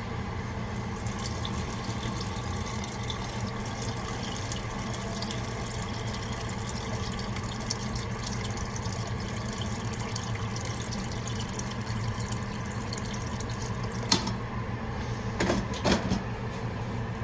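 Water running from a kitchen tap into a pot to make soup, a steady rush over a low steady hum. About fourteen seconds in it stops with a click, and a few knocks follow.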